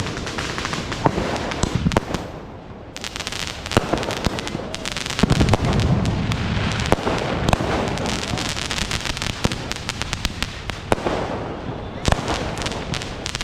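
Firecrackers going off in rapid, dense strings of crackling pops, with a few sharper bangs among them, over a murmur of crowd voices.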